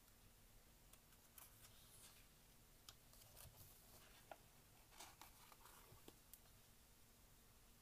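Near silence, with faint rustles and light taps of a book's glossy pages being handled and a page turned about five seconds in.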